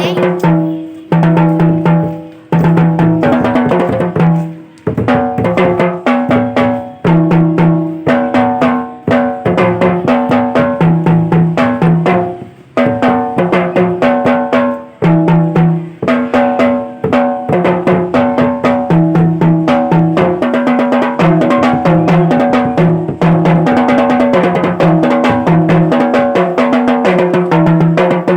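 Drums played continuously in fast, dense rhythmic strokes, with several ringing drum pitches and a few brief breaks in the playing.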